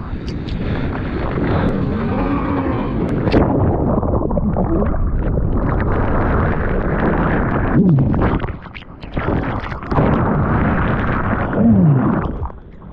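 Heavy shore-break wave and whitewash churning over and around a waterproof action camera: a loud, rough rush and rumble of turbulent water, muffled while the camera is submerged. The rush drops away briefly about eight and a half seconds in and again near the end.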